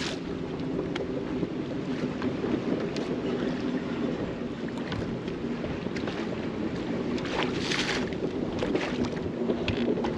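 Wind and small waves lapping and slapping against the hull of a bass boat, with wind buffeting the microphone and a steady low hum underneath. A few light knocks, and a stronger gust of noise near the end.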